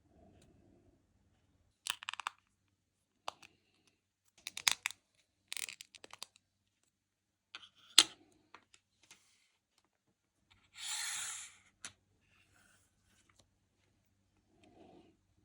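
Small hand tools working on a metal eyeglass frame: scattered sharp clicks and short scratchy strokes, then one longer scratchy noise lasting under a second about eleven seconds in.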